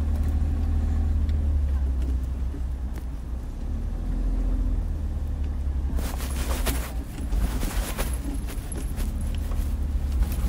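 Steady low rumble of wind buffeting the microphone. From about six seconds in there is a stretch of irregular crackling noise.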